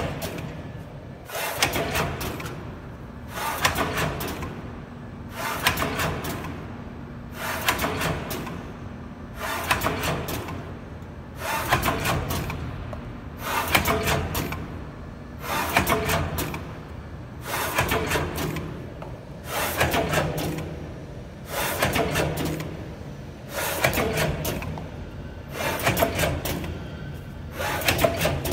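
Vertical form-fill-seal (VFFS) packaging machine running on water-soluble film, cycling about once every two seconds: each cycle brings a burst of mechanical clatter and rustling that rises and fades.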